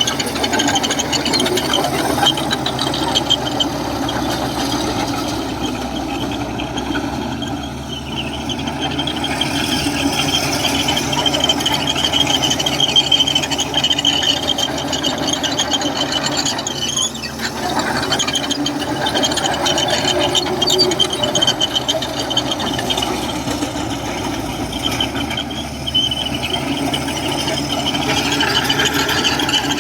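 Komatsu crawler bulldozer at work: its diesel engine runs steadily, with a wavering high-pitched squeal over the engine throughout.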